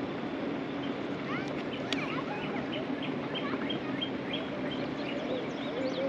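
Wild birds singing and calling, with a regular run of short chirps about three a second in the middle, over the steady rush of river water. A single sharp click about two seconds in.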